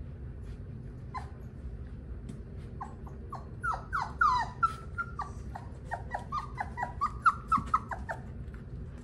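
A young puppy whimpering and yelping in a rapid run of short cries, many falling in pitch, starting about three seconds in and lasting about five seconds, over a steady low hum.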